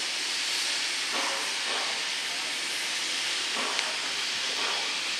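Steam locomotive venting steam: a steady hiss with no rhythm of exhaust beats.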